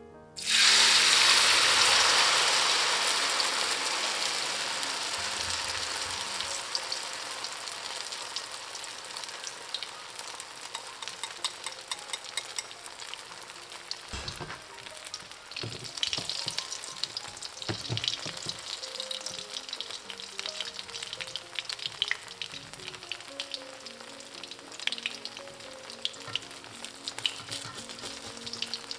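Oyster omelette batter of sweet potato starch, oysters and green onion hitting hot oil in a wok: a sudden loud sizzle about half a second in that dies down over several seconds into steady frying, with crackles and spits of oil throughout. A few low knocks come partway through.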